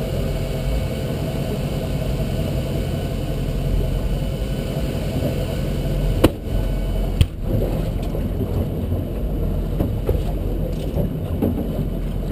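Volvo Penta 5.0-litre V8 sterndrive engine idling steadily. Two sharp knocks about six and seven seconds in.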